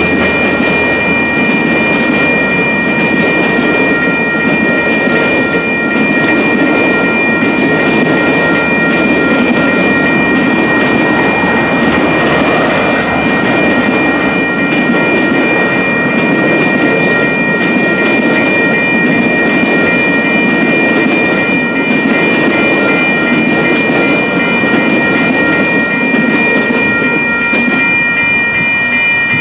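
A long passenger train's cars rolling steadily past a grade crossing, with wheels clattering on the rails, while the crossing's WCH electronic bell rings on without a break.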